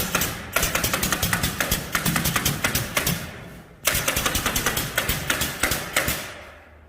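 Power tool hammering in a rapid run of sharp clicks, starting abruptly, fading off, then starting again, twice.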